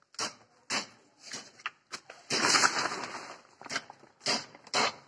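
Phone handling noise: irregular scuffs and rustles of the phone rubbing against clothing as it is moved about, the loudest a longer rub in the middle.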